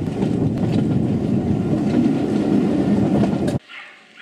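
Steady low rumble of a passenger coach running along the track, heard from the carriage window. It cuts off suddenly about three and a half seconds in.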